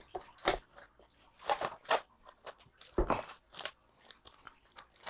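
Plastic cling wrap crinkling in short, irregular crackles as it is handled and tucked around a stand mixer's steel bowl, with the mixer switched off.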